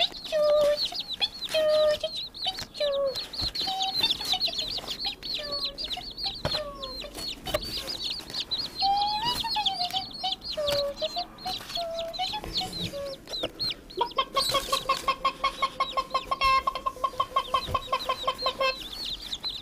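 A brood of young chicks peeping constantly: a dense chorus of shrill, rapid cheeps, with scattered lower, wavering calls mixed in. From about two-thirds of the way through, a fast, even run of short lower-pitched notes repeats for several seconds.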